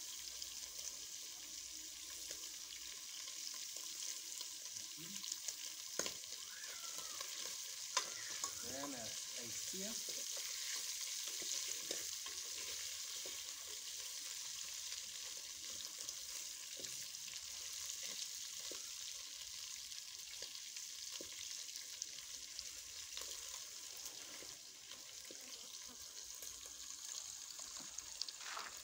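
Food sizzling steadily as it fries in hot cooking oil, stirred with a cooking stick that clicks and scrapes against the pan now and then.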